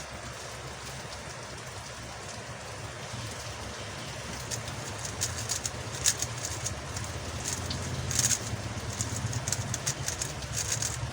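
MoYu Huameng YS3M MagLev 3x3 speedcube being turned fast in a solve: a quick run of sharp plastic clicks that starts a few seconds in and grows denser and louder. A steady low hum runs underneath.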